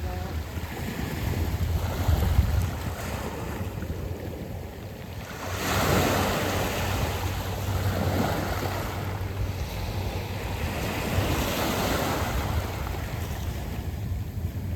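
Sea waves washing in and drawing back over a beach of smooth, rounded pebbles, in a steady wash with a louder surge about six seconds in and another near twelve seconds. A low rumble of wind on the microphone runs underneath.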